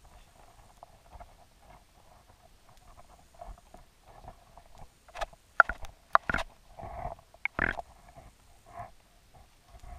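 Muffled underwater gurgling heard through a submerged camera's microphone, with a cluster of sharp clicks and knocks about five to eight seconds in.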